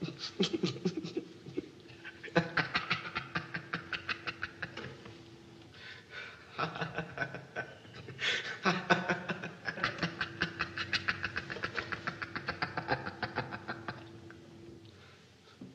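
A person laughing in long runs of rapid, breathy pulses, about five a second. There is a short break about six seconds in, and the laughing stops shortly before the end.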